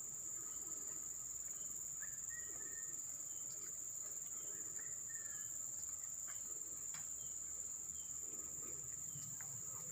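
Insects, crickets or similar, keeping up a steady high-pitched trill, with a few faint bird chirps about two seconds in and here and there after.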